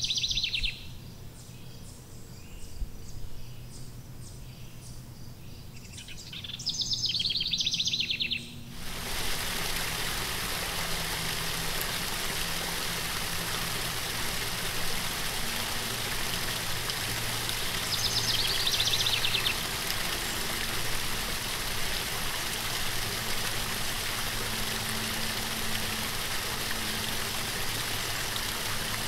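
A bird's rapid trilling call twice over a quiet background, then, about nine seconds in, a sudden switch to a small stream rushing steadily over rocks, with one more brief bird trill partway through.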